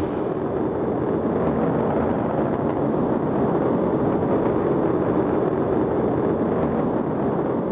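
Rocket engines at liftoff: a steady rushing roar of exhaust that holds level throughout.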